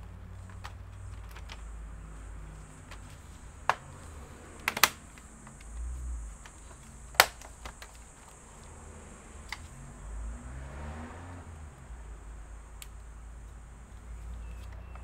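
Scattered sharp clicks and taps of laptop parts being handled and fitted, about half a dozen spread out, the loudest about seven seconds in, over a low steady hum.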